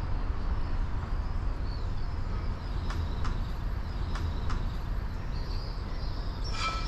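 Wind rumbling on the microphone outdoors, a steady low buffeting, with a few faint ticks midway and a short, higher chirp-like sound near the end.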